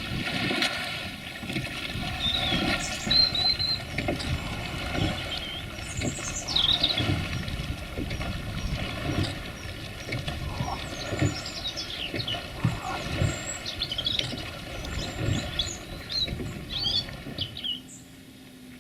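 Birds chirping and singing, many short calls and trills, over irregular low thuds and rustling that stop about a second before the end.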